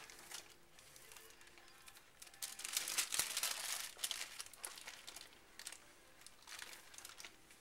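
Wax paper crinkling and rustling as a flattened sheet of ground beef is rolled up in it. It is loudest for a second or so from about two and a half seconds in.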